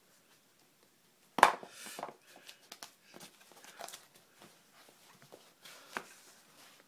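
A sharp knock about a second and a half in, then scattered light taps, clicks and rubbing, with a second smaller knock near the end: the watercolour board and brush being handled on a wooden work table.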